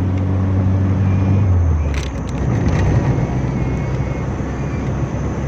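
An engine running under a steady rush of noise. Its low hum shifts and weakens about a second and a half in, and there is a sharp click about two seconds in.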